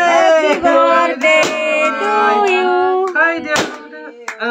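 A group of voices singing together, several pitches held and gliding at once.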